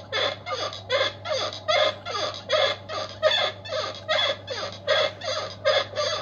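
Door hinge squeaking over and over as the door is swung, about three short squeals a second, each falling in pitch. The brass hinge is squeaking from friction, with the door loaded off-centre, which the inspector puts down to sagging floor framing in an old house.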